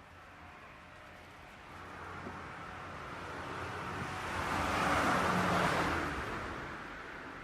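A road vehicle passing by: its tyre and engine noise swells to a peak about five seconds in, then fades away.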